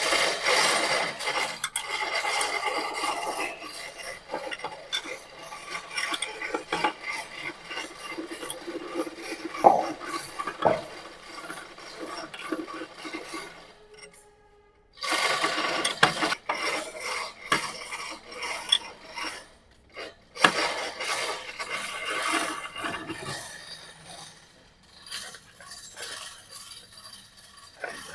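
Hand tools working on metal: a steady rasping and scraping with scattered clinks and knocks. It stops for about a second near the middle and again briefly a few seconds later.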